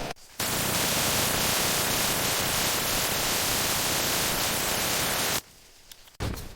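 A loud, steady hiss, even across all pitches and strongest in the highs, starting abruptly and cutting off abruptly after about five seconds.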